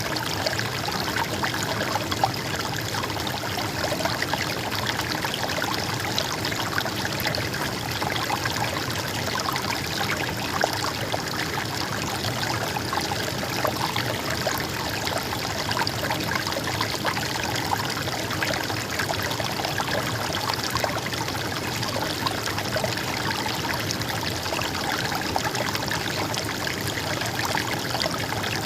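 Stream of water flowing and gurgling, steady throughout.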